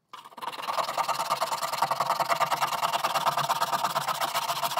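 Sandpaper rubbed by hand in rapid, even strokes over a hard plastic panel, smoothing down a melted cable-tie weld bead along a crack. It begins a moment in and keeps up steadily.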